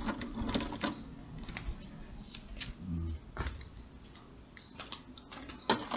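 A few short rising chirps, like a small bird's, over scattered sharp clicks and taps of a screwdriver working a screw into a plastic printer casing.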